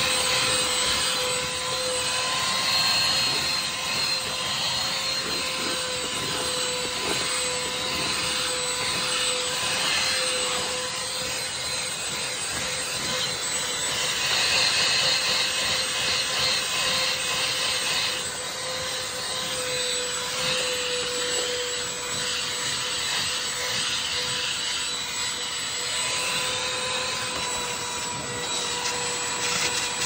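Handheld vacuum cleaner running steadily while it vacuums carpet: a constant motor whine over rushing air. The air noise turns brighter and hissier for a few seconds around the middle.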